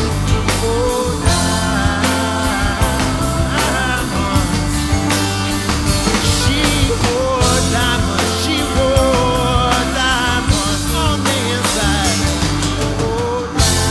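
Background rock music with a steady drum beat and singing.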